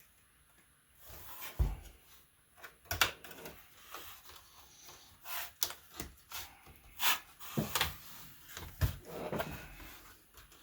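Plastic laptop parts of an HP G60 being handled during disassembly: irregular knocks and clicks with light rustling, starting about a second in.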